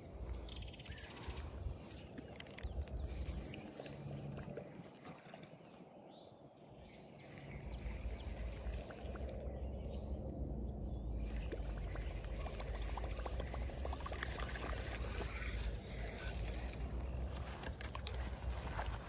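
Outdoor ambience: a steady high-pitched hum, a low rumble that fades for a few seconds in the middle and returns, and scattered small clicks and rustles.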